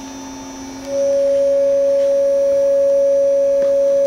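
Pure sine tone of about 555 Hz, tuned to a crystal wine glass's resonant frequency, played loud through two mismatched 6.5-inch midrange speakers that are wired out of phase. It starts suddenly about a second in and holds steady at one pitch, over a faint low electrical hum.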